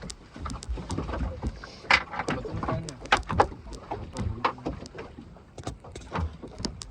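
Irregular knocks, clicks and clatter aboard a small fishing boat, a few sharper and louder than the rest, over a low rumble of water and wind.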